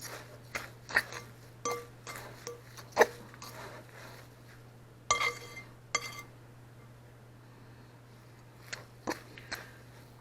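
Dishes and utensils knocking and clinking during kitchen work, with several quick knocks early on, one ringing clink about five seconds in and a few more knocks near the end. A steady low hum runs underneath.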